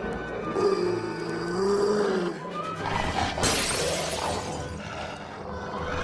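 Cartoon soundtrack music, with an animal's drawn-out call that rises and falls in the first two seconds and a sudden noisy crash a little past the middle.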